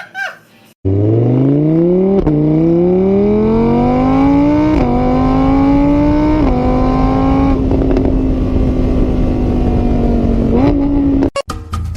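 Vehicle engine accelerating through the gears: its pitch climbs, drops sharply at each of three shifts, then holds steady at speed. It starts abruptly about a second in and cuts off suddenly near the end.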